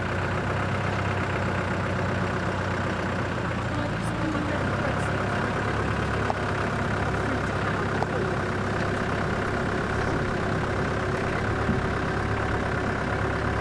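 4x4's engine running steadily at low revs, heard from inside the vehicle as it crawls up a rough unsealed lane in low-range gearing. A couple of light knocks come from the vehicle about six and eight seconds in.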